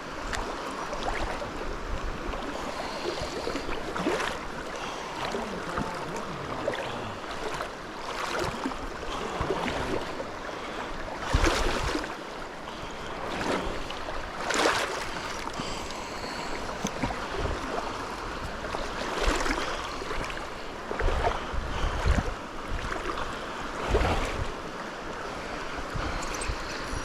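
Creek water running steadily, with occasional brief rustling bumps and low thumps on the microphone.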